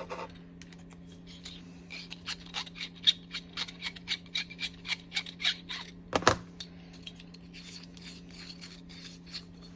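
Flat screwdriver turning the small screw out of the bottom of a mezuzah case: a run of quick small ticks and scrapes, about three or four a second, with one louder click about six seconds in, over a steady low hum.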